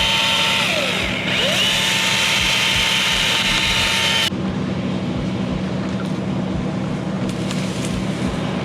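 Battery electric chainsaw revving up to a steady high whine, winding down about a second in, then spinning up again and running at steady speed until it stops abruptly about halfway through. After that only a steady background hum and traffic-like noise remain.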